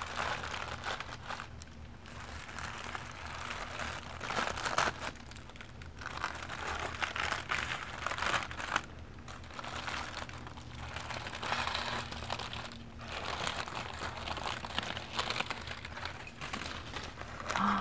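Yellow tissue paper being slowly crinkled and crumpled by hand, crackling rustles that swell and fade in slow waves.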